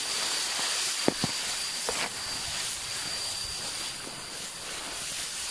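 Steady high-pitched drone of forest insects, with a thin high whine that fades out about halfway through, and a few light clicks around one and two seconds in.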